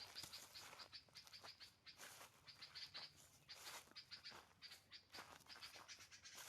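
Small birds chirping faintly, a quick run of short high chirps repeated several times a second, with intermittent rustling.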